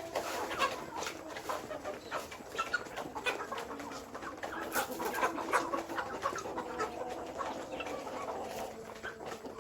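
A flock of chickens clucking, many short overlapping clucks with a few drawn-out hen calls.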